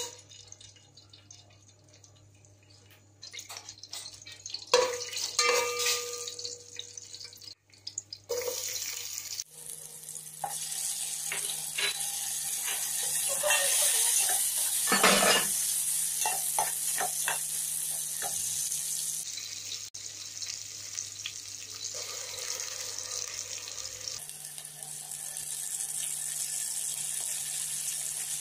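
Whole spices tipped from a plate into a deep aluminium pot, with a few knocks and clinks. From about nine seconds in, sliced onions and green chillies sizzle steadily in hot oil, while a ladle scrapes and clinks against the pot as they are stirred.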